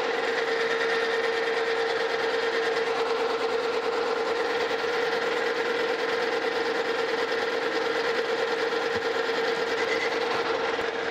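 Metal lathe running with a steady hum, its insert cutting tool turning down the end of a spinning steel bar.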